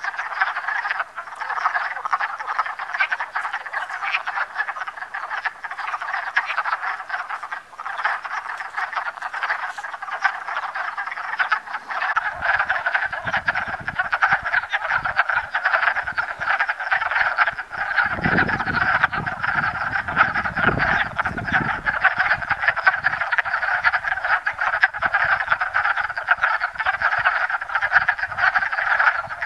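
A breeding chorus of many wood frogs chattering together, a dense unbroken mass of short overlapping clucking calls. A low rumble comes in about halfway through.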